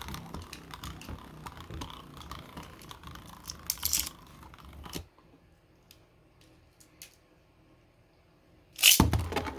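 Small plastic clicks and scraping of Beyblade parts and launcher being handled, with a louder rasp about four seconds in. The sound drops to near silence with a few faint ticks, then a loud sudden rasping burst comes near the end, the start of the next launch of the spinning tops.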